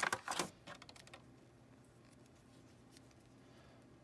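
Thin clear plastic bag crinkling as the action figure is pulled out, stopping about half a second in, followed by a few faint clicks of the plastic figure being handled and then near silence.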